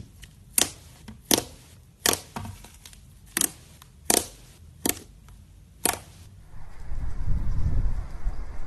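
White slime being played with, giving about eight sharp pops, roughly one a second, as air pockets burst. After about six and a half seconds the popping stops and a louder, continuous low rumble takes over.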